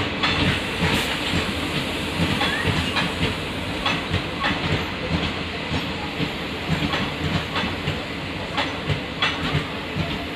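Passenger coaches of an express train rolling past, their wheels clacking over the rail joints in an uneven series of clicks over a steady rumble.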